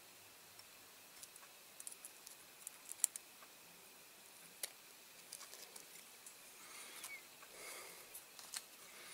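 Faint, scattered clicks and ticks of metal tweezers against a diecast model car body as masking tape is peeled off it, the sharpest cluster about three seconds in, with a soft rustle of handling near the end.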